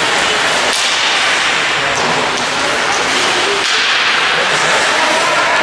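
Rink sound of an ice hockey game in progress: a steady, loud wash of noise with a few sharp clacks from play on the ice.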